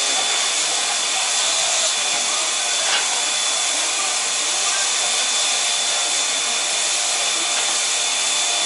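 C58 steam locomotive standing at the platform and letting off a steady hiss of steam, with a thin steady high tone running through it.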